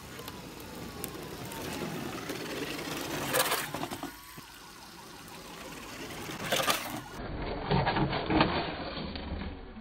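Toy Bruder Mercedes-Benz Sprinter RC ambulance driving, its small electric drive motor whirring while its electronic siren sounds. The sound changes abruptly a few times.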